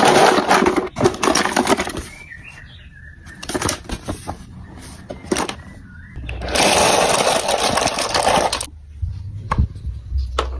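Marbles rolling and rattling along a plastic building-block marble run, in two long stretches of dense clatter, one at the start and one from about six seconds in. Single clicks and knocks fall in between.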